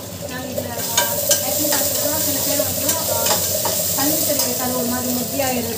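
Onion and spice masala frying in oil and ghee in a steel pan, sizzling steadily, with a spoon scraping and clinking against the pan as it is stirred. The sizzle grows louder about a second in.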